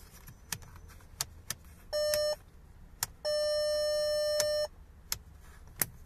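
Audi A3 8V rotary headlight switch clicking sharply several times as it is turned through its positions. The car's warning tone sounds twice in between at one steady pitch, a short beep about two seconds in, then a longer tone of about a second and a half.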